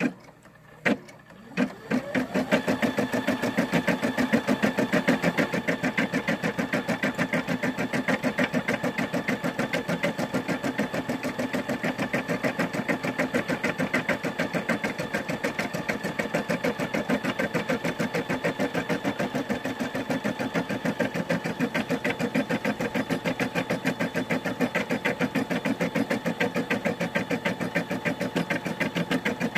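A Brother SE600 embroidery machine starts up about two seconds in, after a couple of clicks, and runs steadily, the needle stitching at a rapid, even rhythm as it sews out an embroidery design on felt.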